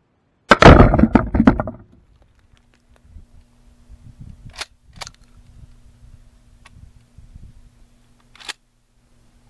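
A 12-gauge pump-action shotgun (Mossberg Maverick 88) fires once, close and very loud, about half a second in, blasting a watermelon. A second or so of crackling follows as it dies away. A few quieter sharp clicks come later.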